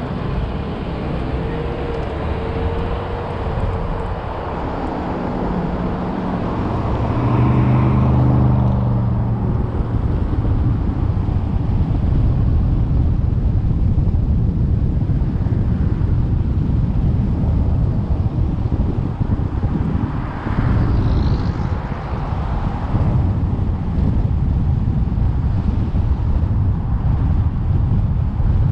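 Steady low rumble of vehicle and road noise while moving, with an engine hum growing louder about seven to nine seconds in.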